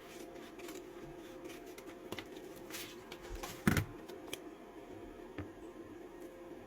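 Small handling sounds of insulating paper being applied to a lithium battery pack: scattered soft clicks and rustles, with one louder knock about three and a half seconds in, over a faint steady hum.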